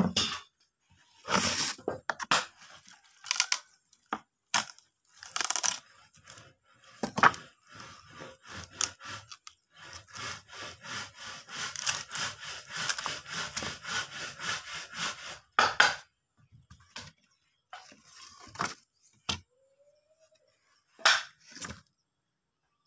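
Wooden board being handled and broken out by hand after routing: intermittent scraping, rubbing and cracking of wood, with a long stretch of quick scratchy rubbing in the middle.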